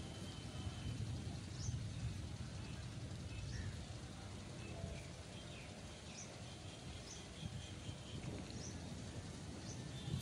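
Outdoor ambience after rain: a low, uneven rumble of wind on the microphone, with small birds giving short high chirps about once a second.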